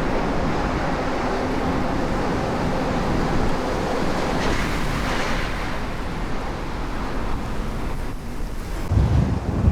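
Strong wind blowing over a camera microphone: a steady rushing noise, with heavy low buffeting as gusts hit the mic near the end.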